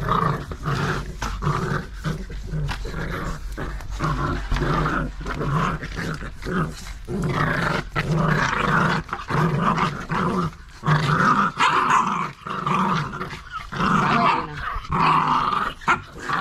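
Staffordshire Bull Terrier puppies and their mother growling in play while tugging on a rope toy: a run of rough growls, each a second or less, with short breaks between.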